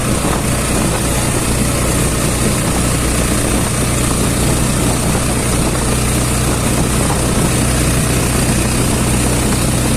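A vehicle's engine running steadily, a constant low hum over road and wind noise.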